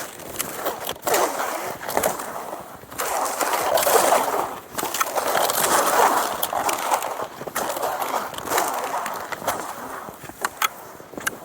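Cross-country skis scraping and sliding over snow in repeated surges a second or two apart, with scattered sharp clicks.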